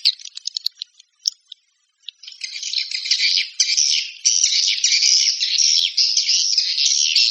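Recorded swiftlet calls of the kind played as a lure for swiftlets: scattered sharp clicks for the first two seconds, a brief pause, then dense, fast, high twittering chatter.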